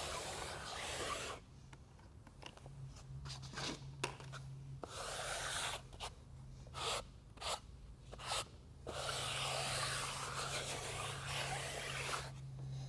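Rough scraping and rubbing strokes on a floor during underlayment installation, a long stretch near the start and another from about nine seconds in, with shorter strokes between, over a faint steady hum.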